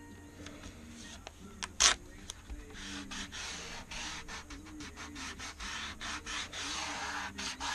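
Paper masking tape being rubbed and pressed down by fingers onto a composite glider wing's surface, a dense scratchy rubbing made of many short strokes. A single sharp crack comes about two seconds in, the loudest moment. Faint background music plays underneath.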